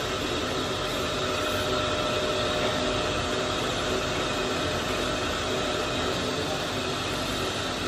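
Steady, even running noise of factory machinery, with a few faint steady tones in it.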